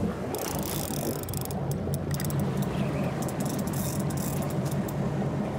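Shimano Stella SW spinning reel's drag clicking in rapid runs of fast ticks as a hooked giant trevally pulls line off the reel, over the steady low hum of the boat's engine.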